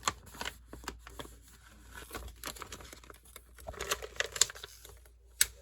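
Paper rustling and crinkling, with scattered small clicks and knocks, as craft supplies are handled on a desk. A sharp click comes near the end.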